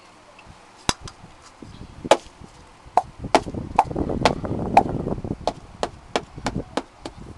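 A calabash gourd being knocked and handled: about a dozen sharp knocks, the first few spread out, then closer together from about three seconds in, with a rustling clatter of handled objects in the middle.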